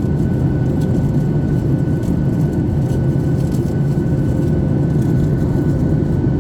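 Airliner cabin noise in flight: the steady roar of the jet engines and airflow heard from inside the passenger cabin, deep and unchanging, with a faint steady high tone over it.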